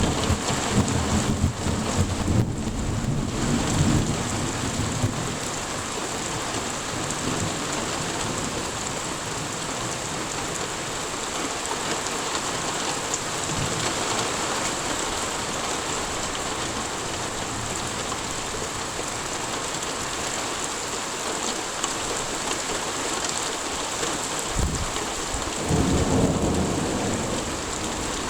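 Steady rain falling during a thunderstorm, with low rumbles of thunder in the first few seconds and again near the end.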